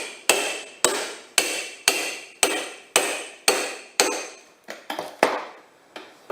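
Hammer striking a small demolition crowbar wedged between a tyre and a steel wheel rim, driving it in to break the tyre bead off the rim. About two ringing metal blows a second, steady at first, then a few lighter, uneven taps near the end.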